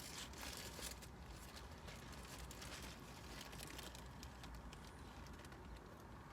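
Faint chewing of a bite of fried fish sandwich, with a few soft clicks and crinkles in the first second, over a steady low hum.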